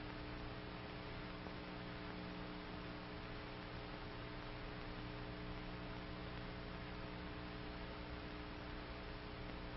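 Faint steady electrical hum under a constant hiss: the background noise of an old film soundtrack, with no other sound.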